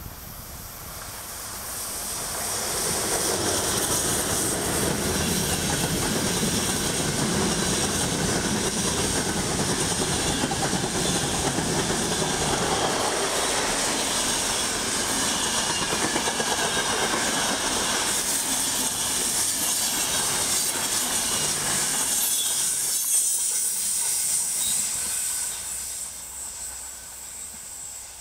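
Passenger train passing close: a steady rumble and clatter of wheels on rail with a high hiss above it. It builds over the first few seconds, holds, and fades near the end.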